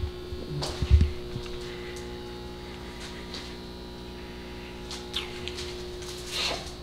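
Steady electrical mains hum, with a couple of low knocks about a second in and a few short brushing sounds later.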